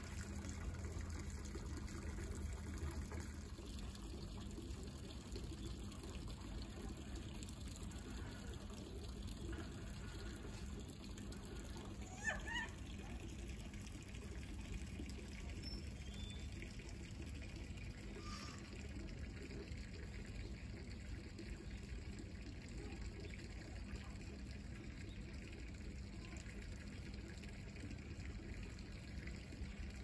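Steady trickle and splash of water pouring from a pipe into a plastic tub. About twelve seconds in there is one short rising squeak.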